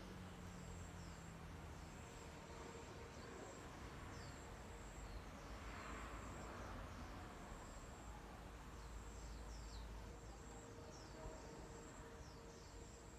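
Faint garden ambience: a steady high insect trill, with short falling bird chirps repeating many times throughout, over a low rumble.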